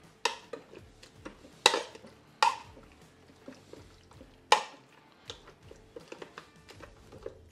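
Wire potato masher working boiled potatoes with cream and butter in a Ninja Speedi cooking pot, knocking against the pot at irregular intervals. There are four loud knocks in the first half and lighter, quicker taps after that.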